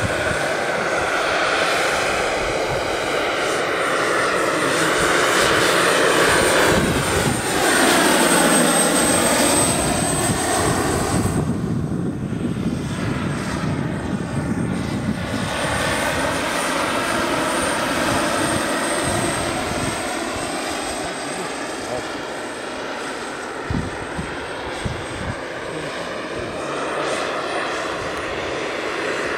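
Pahl Taurus two-stage model turbine and five-blade rotor of a 9 ft scale Mi-24 RC helicopter in flight: a steady high turbine whine over rotor noise. It swells and dips in pitch as the helicopter flies past, loudest about a quarter of the way in.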